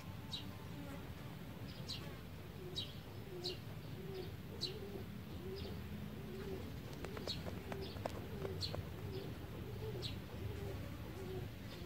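Outdoor birdsong: a dove cooing in a repeated low note through most of the stretch, while small birds give short, high chirps about once a second.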